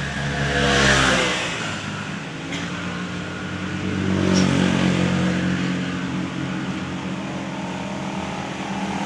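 A motor vehicle engine running, revving up about a second in and rising again around the middle before settling to a steady run.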